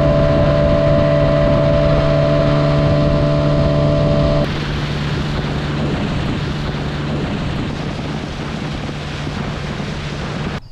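A small boat's motor running at speed with wind and water rushing past. About four seconds in, the sound changes abruptly: the engine hum drops back and a rush of spray and wind takes over.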